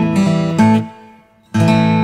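Background music of strummed acoustic guitar chords. The music drops away briefly about a second in, then a new chord rings out.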